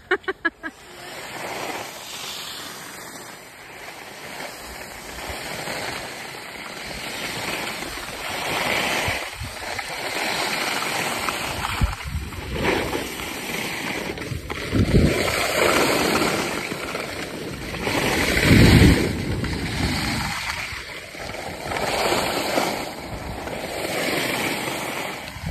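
Skis hissing and scraping over snow through a series of turns, the noise swelling about every two to three seconds, with wind rumbling on the microphone.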